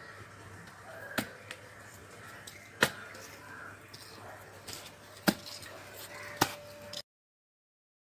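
A curved chopping knife striking into a green tender coconut's husk: four sharp chops a second or more apart, with a few lighter taps between. The sound cuts off suddenly near the end.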